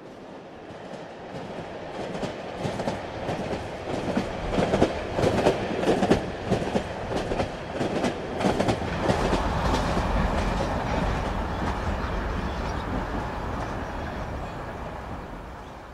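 A clattering, rumbling noise that swells, with a long run of sharp irregular clicks over its first half, then settles into a low steady rumble and fades away near the end.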